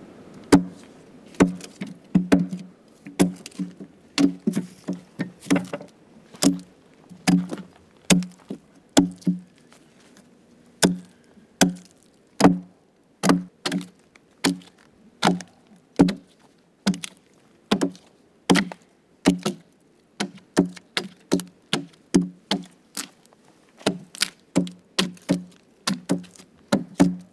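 A hand adze chopping into the charred interior of a pine log, chipping out burned wood to hollow a dugout canoe. The sharp strikes come at about two a second.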